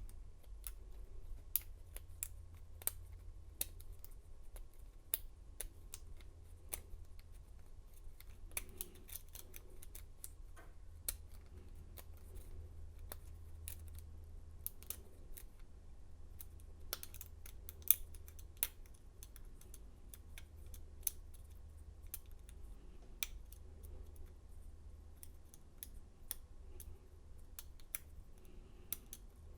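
Single-pin picking of a Master Lock 6721 padlock's Kwikset cylinder with a pry-bar tension tool and a gem pick: light, irregular clicks and ticks of the pick working standard pin tumblers, with one louder click about 18 seconds in, over a low steady hum.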